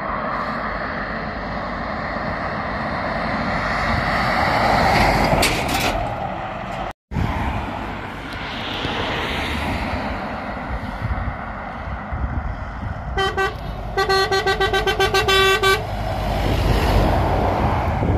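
Lorries and cars passing at speed, the tyre and engine noise swelling as one goes by about five seconds in. Later a lorry horn sounds: one short blast, then a quick string of toots for about two seconds, as a lorry comes past close by.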